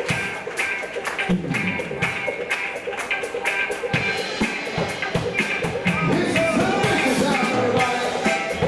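Live band playing upbeat music with a steady drum beat.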